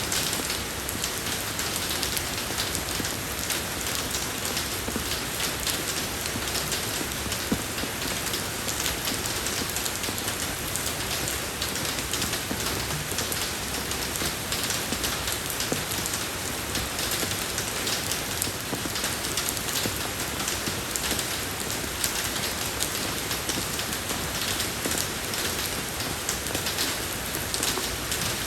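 Steady rain falling on a road surface, an even hiss dense with small drop patters.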